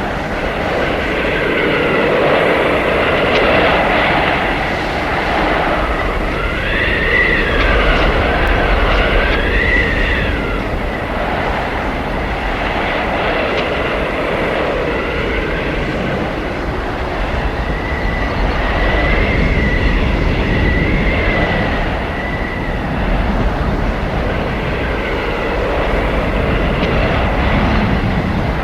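Howling blizzard wind: a steady, loud rush of gusts that swell and ease, with whistling tones that rise and fall every few seconds.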